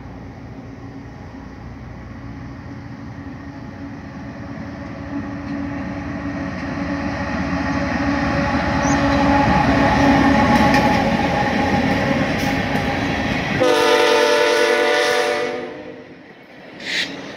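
BNSF diesel locomotive drawing a track geometry car approaching and passing close by, its engine and wheels rumbling louder to a peak. Then the rumble cuts off abruptly and the locomotive's air horn sounds a chord for about two seconds before fading.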